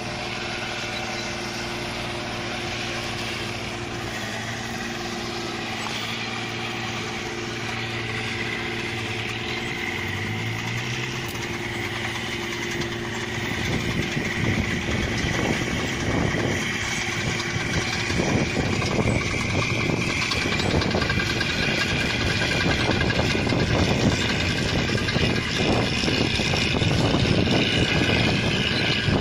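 Rice combine harvester's engine running steadily, its pitch rising briefly about ten seconds in. From about halfway it gets louder and rougher, a heavy machine clatter and rush as the harvester works.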